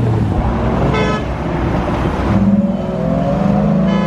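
Cars pulling away and accelerating, one engine rising steadily in pitch in the second half. A short car-horn toot sounds about a second in, and another comes near the end.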